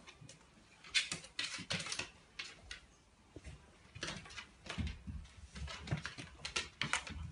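A Shih Tzu's paws and claws tapping and scuffing on the floor in an irregular patter as she walks.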